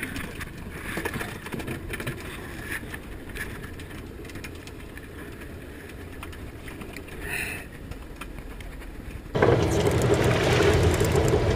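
Fishing boat's engine running with a low steady rumble, with small handling knocks at first; about nine seconds in it suddenly gets much louder, the engine hum stronger over the wash of water.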